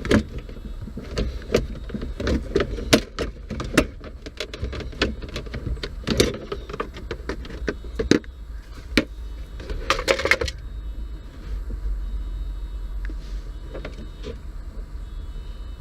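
Plastic dashboard trim being pulled off a pickup's dash: a run of sharp clicks, snaps and knocks for about ten seconds, then a quieter low rumble.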